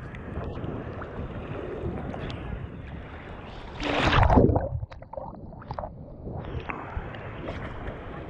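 Ocean surf churning and washing steadily, with a louder rush of water about four seconds in that lasts under a second.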